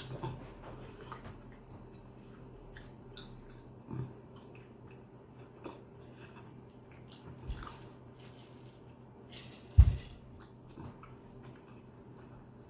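Close-miked chewing and gumming of steak by a toothless eater: wet mouth smacks and small clicks. A sharp thump about ten seconds in, with a smaller one about four seconds in.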